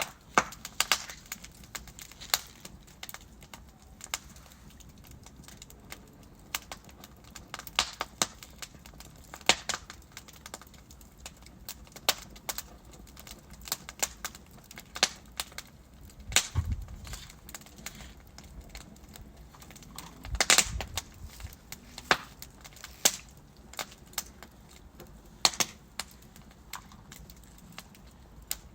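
Wood fire burning in a fireplace: irregular crackling and popping of burning logs over a low hiss, with a few louder pops, notably about 16 and 20 seconds in.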